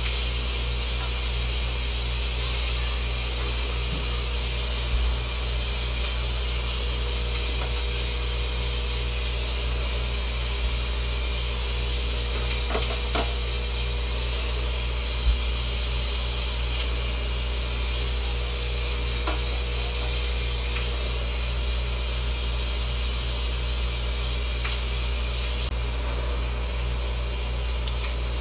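A steady mechanical hum with a low drone and a faint steady tone, with a few light clicks and knocks as food is laid into a stainless-steel pot.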